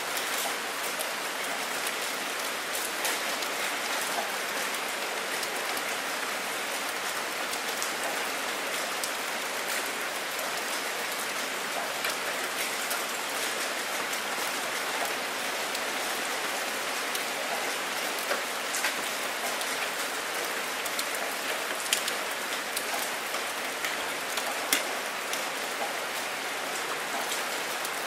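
Steady rainstorm: a dense, even hiss of raindrops with scattered sharper drop ticks, a few louder ones in the later part.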